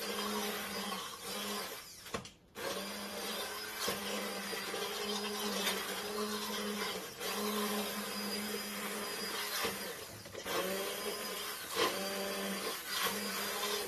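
Handheld immersion blender running in a stainless stockpot, pureeing roasted butternut squash chunks with water into soup: a steady motor hum with churning liquid. It cuts out briefly about two seconds in and dips again about ten seconds in.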